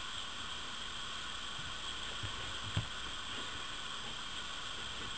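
Steady hiss of background noise, with a few faint soft thumps and one sharper knock a little after halfway.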